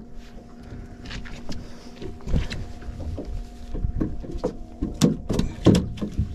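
A landed fish flopping on a fiberglass boat deck: a run of sharp slaps and knocks, thickest and loudest near the end, over a steady low hum.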